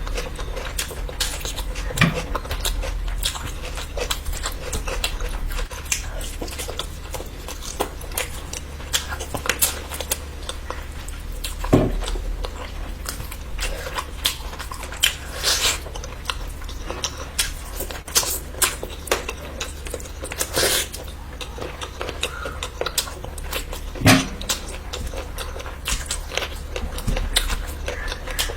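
Close-miked eating: wet chewing, biting and mouth clicks as spicy curry and chicken are eaten, with three louder low thumps spread through it over a steady low hum.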